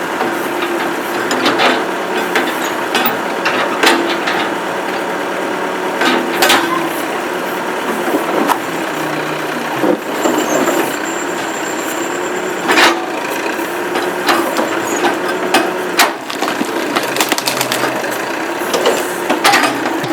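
Massey Ferguson 50A backhoe running steadily with a wavering drone, with scattered sharp knocks and cracks from the digging into a maple stump.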